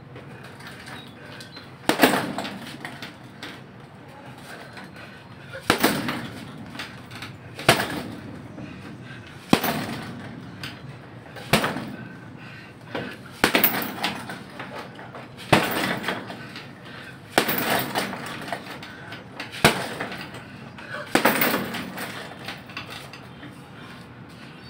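Boxing gloves punching a heavy bag: about a dozen sharp smacks, one every two seconds or so, some landing in quick pairs.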